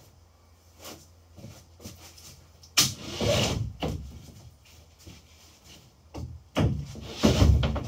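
Large plywood deck panel being shifted on a plywood boat hull: a sharp knock about three seconds in followed by about a second of scraping, then more scraping and heavy knocking near the end.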